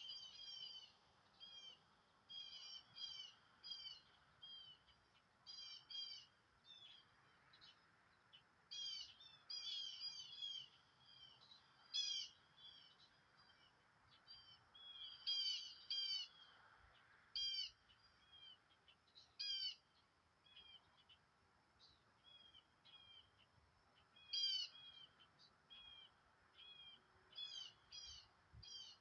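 Small birds chirping: short, high, downward-sliding notes in quick clusters of several at a time, repeating on and off throughout.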